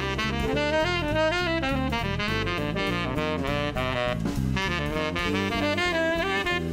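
Background jazz music: a wavering lead melody over a walking bass line and a steady drum beat.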